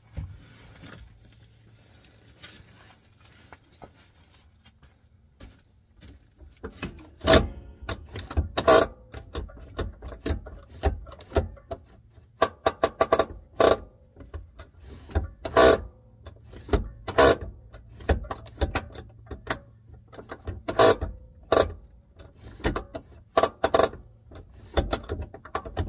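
Irregular sharp clicks and clunks begin about seven seconds in, some single and some in quick clusters: the 1997 Jeep TJ's hand parking-brake lever and linkage being pulled and released to test how firm the newly adjusted cables hold.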